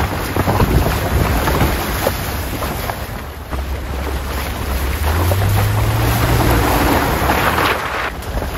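Mitsubishi Pajero driving through shallow water and loose river stones: tyres crunching over gravel and splashing, with wind buffeting the microphone held outside the window. A low engine hum comes in partway through, rises a step in pitch, then fades near the end.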